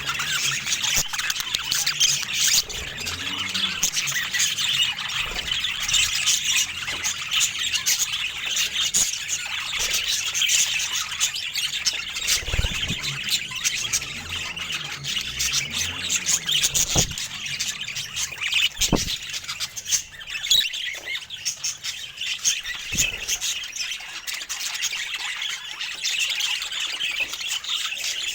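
Budgerigars chirping and chattering non-stop, a busy mix of warbles, chirps and squawks, with a few short low thuds along the way.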